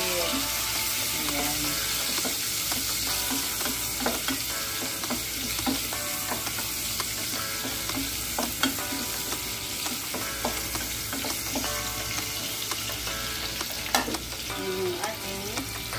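Ginger and garlic sizzling in hot oil in an aluminium pot, stirred with a wooden spatula that scrapes and taps against the pot. One sharper knock about two seconds before the end.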